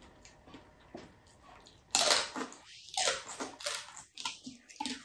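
Crunching and chewing of crispy fried pork belly (crispy liempo) with its crackling skin: a loud crunchy bite about two seconds in, then several more crunches as it is chewed.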